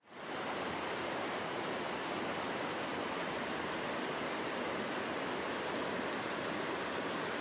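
Steady rush of flowing stream water, fading in at the very start.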